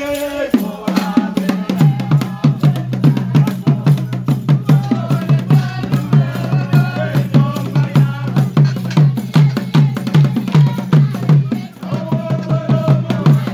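Acholi bwola dance drumming: drums beaten in a fast, steady rhythm, with voices singing over it in places.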